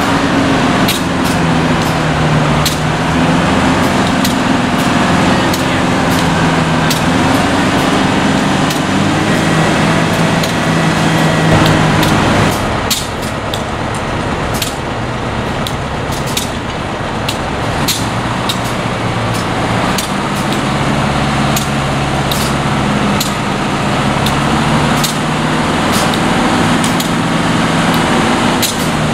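Diesel engine of a truck-mounted crane running under load while lifting a locomotive wheelset, its pitch rising and falling. It drops out for several seconds in the middle and then comes back. Sharp ticks are heard throughout.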